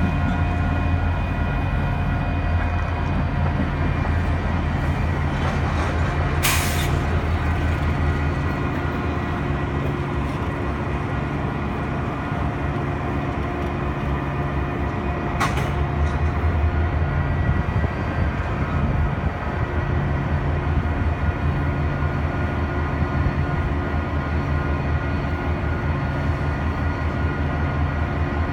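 Canadian National diesel locomotive running steadily, with a short hiss of air about six and a half seconds in and a sharp click around fifteen seconds.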